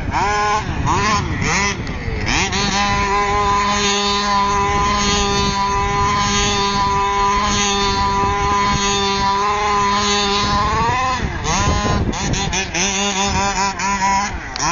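Small engine of a radio-controlled baja buggy revving up and down, then held at one steady high pitch for about eight seconds, dropping and picking up again before more short revs near the end.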